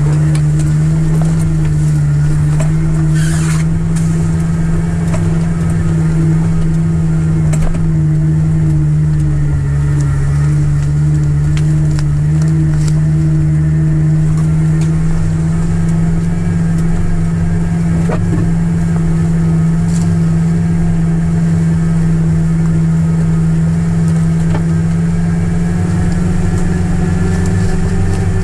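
A 1997 Jeep TJ's engine pulling steadily at a nearly constant pitch as it climbs a steep, rutted trail, heard from inside the cab. Scattered knocks and rattles come through as the Jeep works over the ruts.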